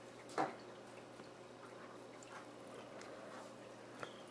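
Faint handling noise from a finger pressing servo wires onto hot-melt glue on a foam surface: one brief rub about half a second in and a small click near the end, over a faint steady hum.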